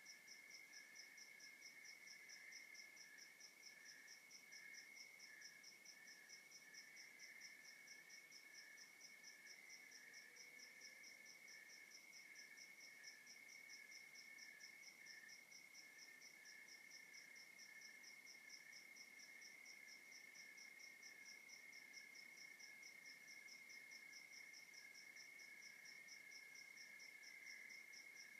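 Faint chorus of night crickets and other insects, several calling at once. One holds a continuous high trill, another chirps in uneven bursts just below it, and a third pulses higher up at a steady two or three beats a second.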